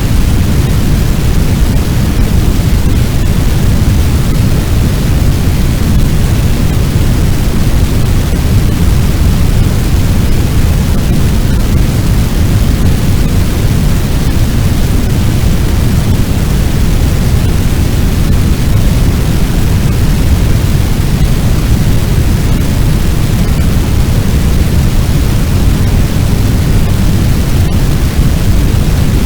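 Fire sound effect: a loud, steady, deep rumbling noise like a large blaze burning, with no crackles or pops standing out.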